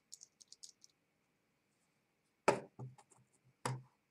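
Small metal parts of a lock cylinder clicking lightly as they are handled, a quick run of ticks in the first second, then two louder sharp knocks about a second apart with a few faint clicks between them.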